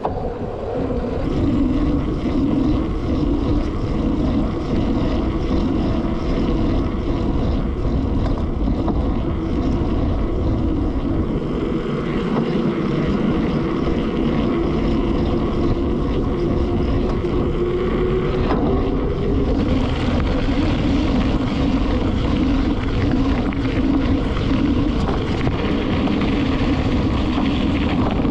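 A vehicle engine running steadily under wind noise on the microphone, its hum slowly rising in pitch for a few seconds partway through.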